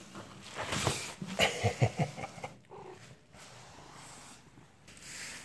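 Plastic packaging crinkling and rustling, with a quick run of knocks and thumps, as cats play in a sofa table's wrapping. The busiest, loudest part falls in the first two seconds, and a shorter rustle comes near the end.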